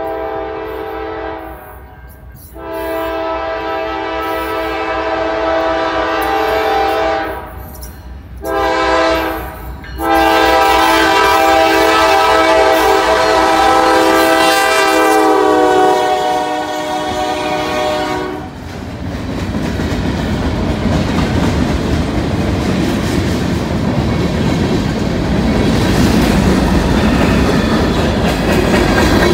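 Diesel freight locomotive's air horn sounding the grade-crossing signal: a long blast, a long blast, a short blast and a final long blast held until about two-thirds of the way through, the warning for a crossing ahead. Then the freight cars roll past close by, their wheels clattering steadily over the rails.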